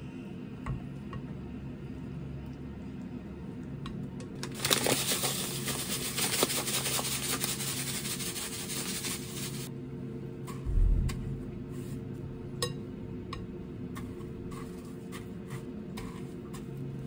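Panko breadcrumbs pouring from a plastic bag onto a wooden board: a dense rustling hiss for about five seconds, starting near the middle, then a dull thump. Light clicks of wooden chopsticks against the batter bowl and in the crumbs before and after.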